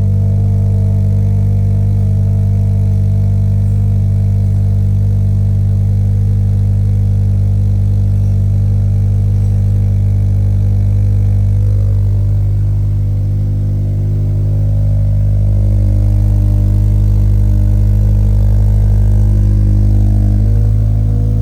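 2020 Subaru BRZ's flat-four engine idling steadily through a newly fitted Invidia N1 cat-back exhaust: a low, even exhaust drone that shifts a little in tone and grows slightly louder after about fourteen seconds.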